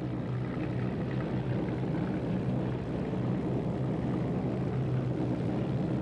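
Piston engines of a Lancaster bomber and an escorting Mustang fighter droning steadily in flight, a low, even propeller-aircraft hum.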